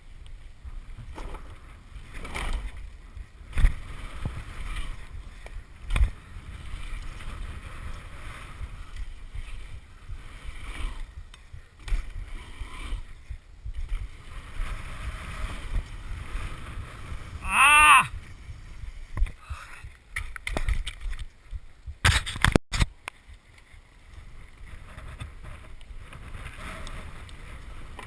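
Wind buffeting the microphone in a steady low rumble, broken by several sharp knocks and thuds and one brief pitched sound about two-thirds of the way through.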